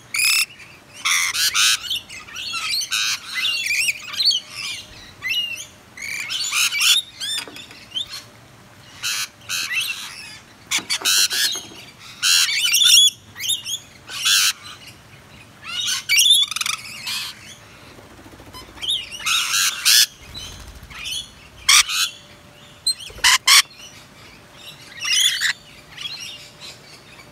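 A group of rainbow lorikeets screeching and chattering at close range, in short shrill bursts with brief pauses between them.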